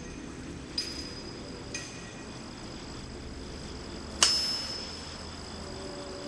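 Bell-like metallic chimes struck one at a time, each ringing with a clear high tone: two light strikes in the first two seconds, then a louder one a little past four seconds that rings on and fades slowly, over a low steady hum.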